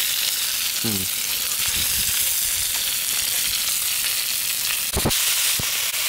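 Fresh pork belly sizzling in a frying pan on a portable gas burner, a steady high hiss. A short knock about five seconds in.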